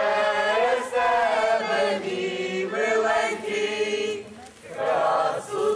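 A group of voices singing together unaccompanied, in long held phrases, with a short break for breath about four and a half seconds in.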